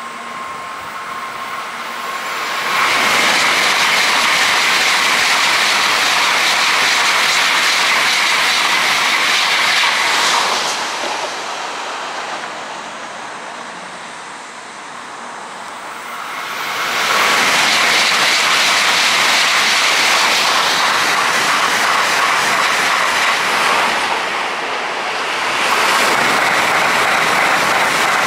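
N700-series Tokaido Shinkansen trains passing at about 250 km/h: a loud, even rushing noise of wheels and air. It swells sharply about three seconds in, eases off for several seconds in the middle, then comes back loud with a brief dip near the end.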